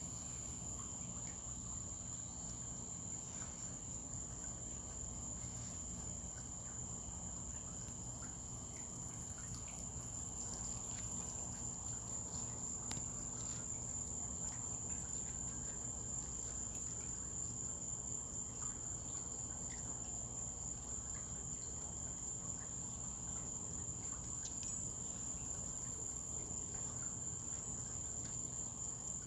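Evening chorus of crickets: a continuous high-pitched trill that holds steady, over a low steady hum.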